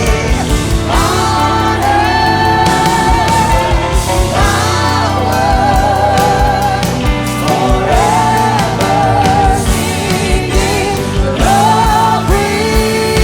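Live contemporary worship music: a singer holds long notes with vibrato over a full band with a steady drum beat.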